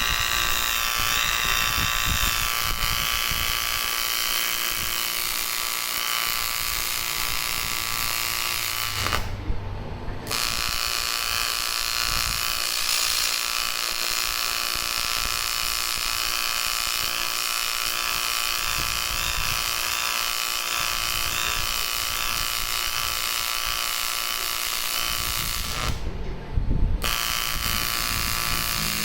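AC TIG welding arc on aluminium: a steady electric buzz with a bright hiss. The arc stops for about a second twice, around nine seconds in and again near the end, then restarts.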